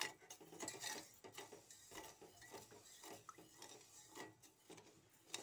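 Steel spoon stirring sugar and water in a stainless-steel pot, with faint, irregular scrapes and clinks against the bottom and sides while the sugar is still dissolving.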